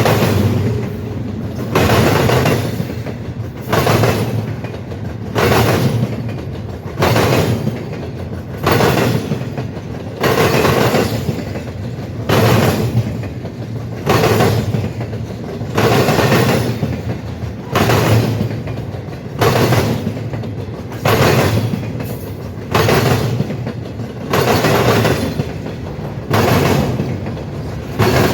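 A passing train's wheels banging over a railroad diamond crossing, a loud clatter of impacts repeating about every 1.7 seconds, with a rolling rumble between them.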